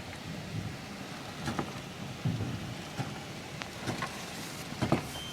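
Rain falling steadily, with scattered sharp taps and a low rumble underneath.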